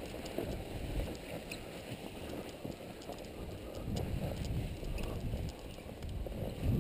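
Wind rushing over the camera's microphone, with scattered small clicks and rustles of handled gear.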